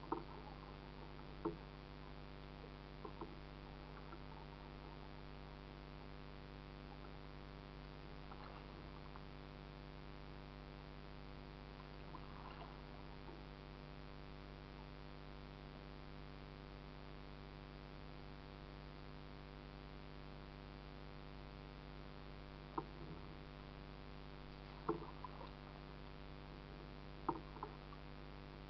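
Steady low electrical hum with many even overtones, the camera's own recording noise. A few short knocks come over it, clustered near the start and again in the last six seconds.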